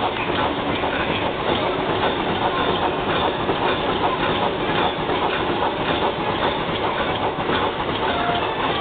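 High-speed side-sealing plastic bag making machine running, set to about 150 bags a minute, giving a steady mechanical clatter made of many rapid clicks.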